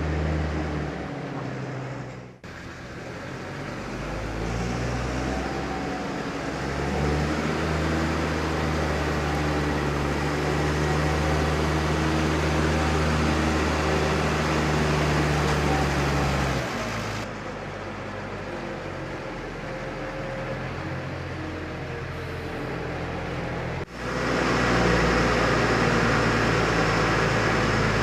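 Tractor engine running steadily while grain pours from a tipping trailer as a rushing hiss over the engine hum. The sound breaks off sharply and resumes twice, and the engine note drops about two-thirds of the way through.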